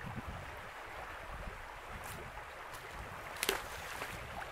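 Shallow river water rushing steadily around a wading angler, with uneven wind rumble on the microphone. A brief sharp splash about three and a half seconds in.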